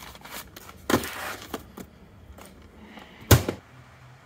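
Paper rustling as a spiral-bound manual's pages are handled about a second in, then a single loud knock of something bumping or being set down near the end.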